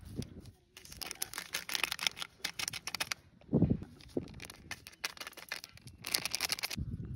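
A plastic spice packet crinkling as it is handled and shaken to pour masala powder into a clay pot, in two crackly spells, with a dull thump a little past halfway.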